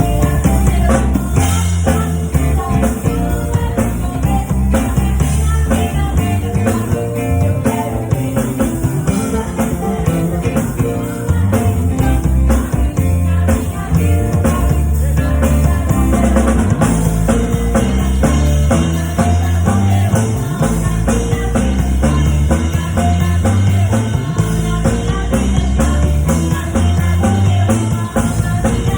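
Full band music with a drum kit playing throughout, in a loud rock style.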